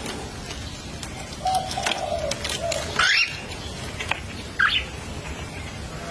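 Newborn kittens mewing: a few short, thin squeaky calls. The loudest comes about three seconds in and rises sharply in pitch.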